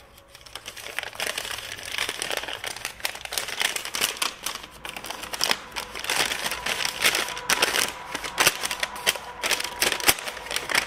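Packaging crinkling and rustling, with many small clicks and knocks, as a new replacement alternator and its paperwork are handled.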